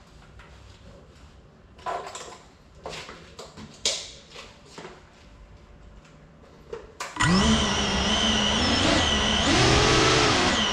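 Ducted quadcopter FPV drone (GEPRC Cinelog35 cinewhoop) spinning up its motors suddenly about seven seconds in: a loud motor whine with several tones that shifts in pitch as the throttle changes. Before that, only a few faint clicks and knocks.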